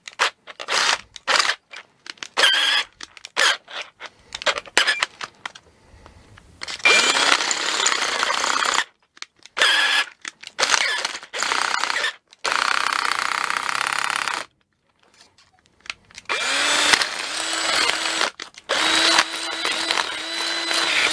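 Cordless drill running in many stop-start runs, short at first and then longer, as a 21/64-inch bit is run through the hole of a printer part to open it up so it slips onto a smooth rod, cutting shavings.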